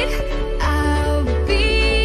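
Background music: an electronic pop track with a steady low beat and a sung or synth melody line.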